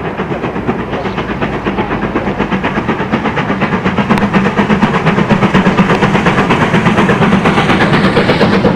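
Jubilee class three-cylinder 4-6-0 steam locomotive working a train, its fast, even exhaust beats growing louder as it approaches.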